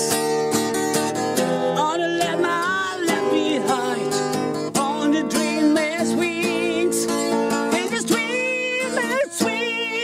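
Acoustic guitar strummed steadily, with a man's voice singing long, gliding, wavering notes over it without clear words.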